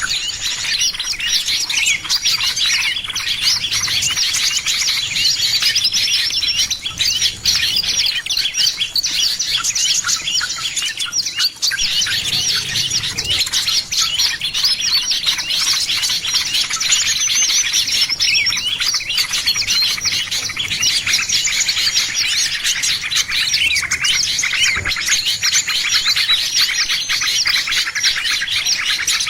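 Dense, unbroken chorus of many small songbirds chirping and twittering rapidly all at once. It is a lure recording meant to call in small birds.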